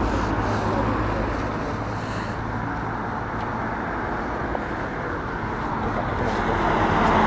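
Road traffic noise: the steady hum of cars on a town road, swelling near the end as a vehicle approaches and passes.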